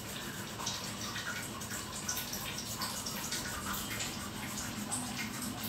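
Crumpled wad of waste paper rubbed back and forth over pencil shading on a drawing sheet, blending the graphite smooth: a steady soft rustling hiss with small scratchy ticks.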